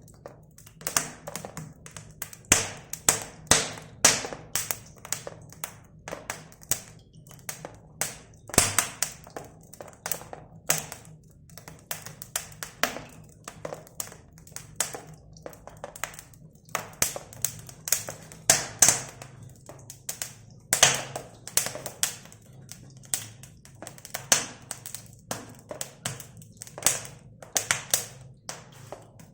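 Irregular sharp taps and knocks, often two or three a second, over a faint steady low hum.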